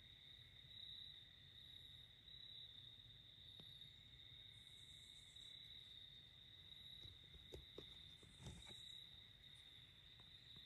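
Near silence in woodland at dusk, with a faint, steady high-pitched trill of night insects singing. A few soft ticks or rustles come about seven to nine seconds in.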